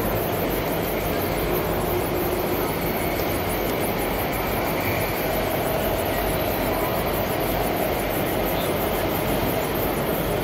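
Steady din of a busy exhibition hall. Under it, a radio-controlled scale wheel loader drives and works its hydraulics, with a faint electric motor and pump whine that comes and goes in the middle.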